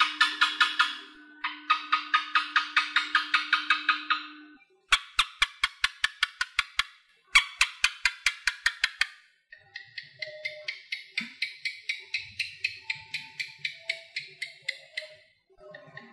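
Asian house geckos calling: several bouts of rapid, sharp chirps, about six or seven a second, with short pauses between bouts; the last and longest bout is softer.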